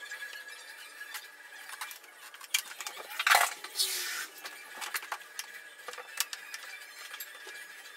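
Light clicks and clinks of small objects being handled at the top edge of a wooden door, with one louder, brief scraping rustle about three seconds in.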